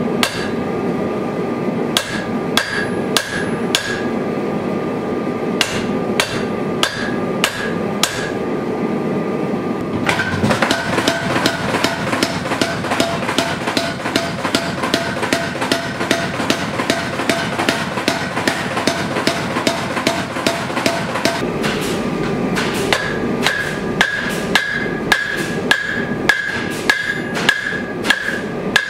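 Hand hammer blows on a red-hot sword blade on an anvil, each strike ringing. About ten seconds in, a power hammer takes over with fast, even pounding for about eleven seconds, then hand hammering on the anvil resumes, the blows coming quicker near the end.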